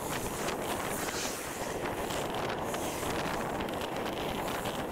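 Wind buffeting the microphone of a camera on a moving bicycle: a steady rushing noise.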